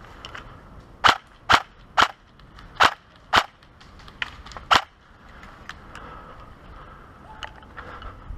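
Airsoft gun fired in single shots: six loud, sharp snaps over about four seconds at an uneven pace, with fainter snaps of more distant shots around them.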